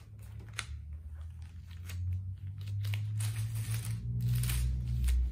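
Thin Bible pages being leafed through by hand: irregular papery rustles and flips, getting louder and busier about halfway through, over a steady low hum.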